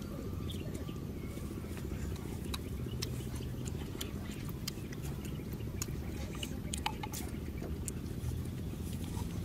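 Small, scattered sharp clicks of snail shells knocking together as they are handled and picked through, over a steady low rumble.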